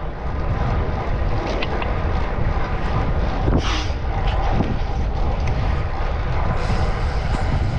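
Wind buffeting the microphone of a handlebar camera on a moving road bike: a steady rumbling rush of air, with faint road noise under it.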